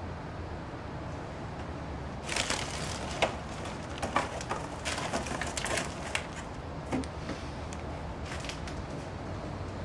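Plastic bags of frozen food crinkling and rustling as they are handled and shifted in a freezer, with sharp clicks and knocks of packages and shelving; it starts about two seconds in and dies down after about seven seconds, with a few last clicks near the end.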